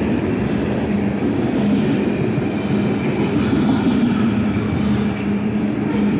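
Freight grain train's covered hopper cars rolling past at close range, steel wheels running steadily on the rails, with a low hum that comes and goes.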